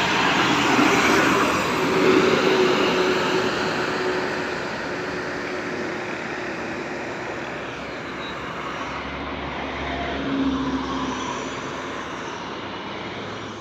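An intercity bus and a car drive past close by, tyre and engine noise loudest in the first few seconds, then easing off to a steadier hum of traffic, with another vehicle passing about ten seconds in.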